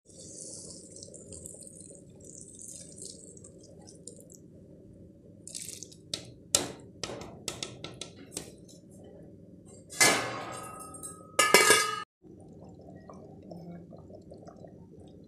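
Palm nut extract poured from a plastic container into a steel cooking pot, a hiss of liquid in the first few seconds, then a run of knocks and clinks against the pot and two loud metal clatters, the second ringing, about ten and eleven seconds in. After a sudden cut the pot of palm nut soup boils with a steady low bubbling.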